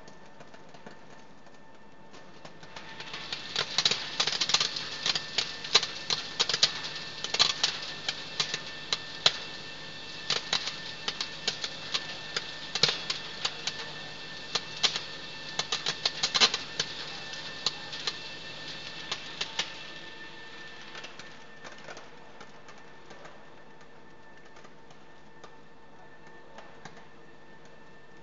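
Optical colour sorter processing dried chillies: a dense, irregular rapid clicking and clatter from the pods feeding down the metal chute and the ejector firing at them. It starts about two to three seconds in, is thickest in the middle, and thins out and stops after about twenty seconds, leaving the machine's steady hum.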